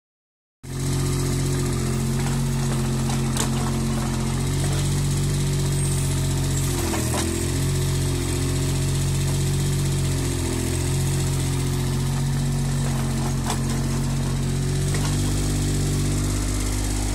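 Mini excavator's engine running steadily while it digs, its pitch dipping briefly twice in the middle, with a few light knocks.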